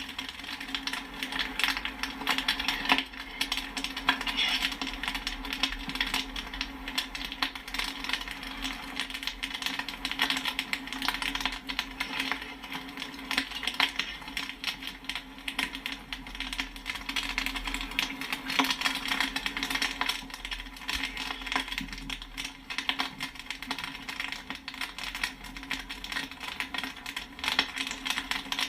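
Popcorn kernels popping rapidly and continuously in a dense crackle of many small pops, over a steady low hum.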